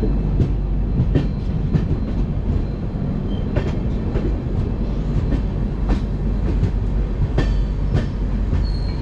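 Rajdhani Express passenger train running on the track: a steady rumble with irregular clicks of the wheels passing over rail joints.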